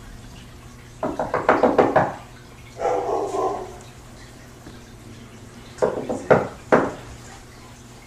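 Rapid knocking on a wooden door, a quick run of about eight knocks, then a short muffled sound, then a second run of about four louder knocks near the end.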